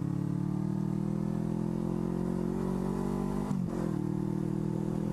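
Suzuki Inazuma GW250F's parallel-twin engine, fitted with an IXIL exhaust, running steadily under way, with a brief break in its note about three and a half seconds in.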